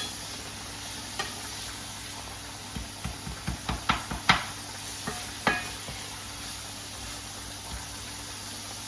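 Beef mince frying in a pan with a steady sizzle. A run of knocks and scrapes from a utensil stirring against the pan comes from about three to five and a half seconds in.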